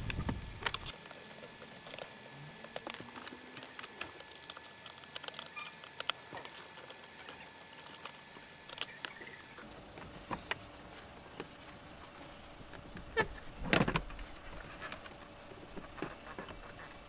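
Light clicks and taps of a screwdriver turning Torx T20 screws and of plastic dashboard trim being handled, with a louder knock near the end as the glovebox housing holding the multimedia unit is pulled free.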